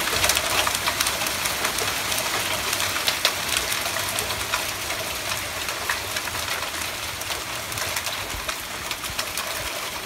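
Small hailstones falling on a concrete walkway and leafy plants: a steady dense hiss full of sharp ticks as the stones strike.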